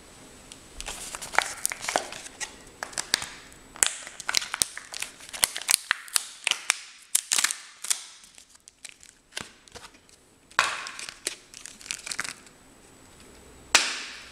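Packaging crinkling and crackling by hand as a coiled clear aquarium air hose is unwrapped from its card insert, in irregular runs of sharp crackles with a quieter stretch midway and a loud crackle near the end.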